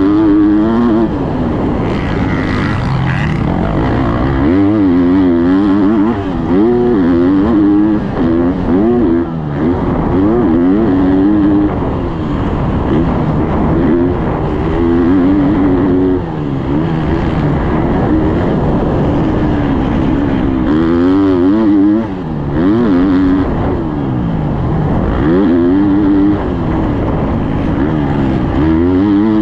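Husqvarna motocross bike's engine being ridden hard on a dirt track, its pitch repeatedly climbing as the throttle is held and dropping off between pulls.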